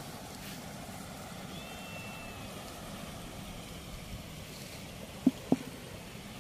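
Steady rush of flowing water, with two sharp knocks in quick succession about five seconds in.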